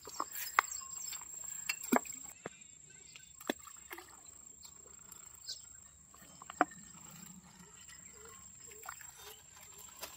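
Bait thrown into a pond, landing on the water with a few short, sharp plops, the last one a little over halfway through.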